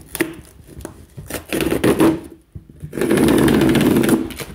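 A cardboard parcel being torn open: a short rip about one and a half seconds in, then a louder rip lasting about a second.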